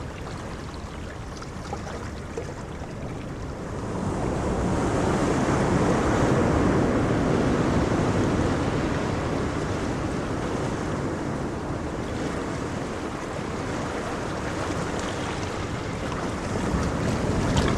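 Ocean waves rumbling and washing in, a steady wash that swells about four seconds in, eases off, and builds again near the end, with wind noise on the microphone.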